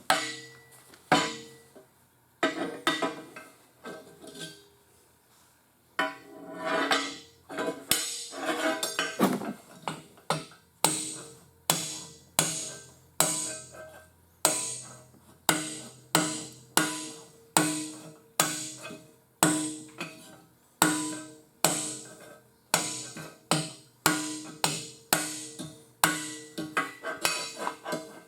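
Hammer blows on a sheet-steel flange clamped between two pieces of angle iron, bending it over; the metal rings briefly after each strike. A few scattered blows at first, then a steady rhythm of a little more than one blow a second.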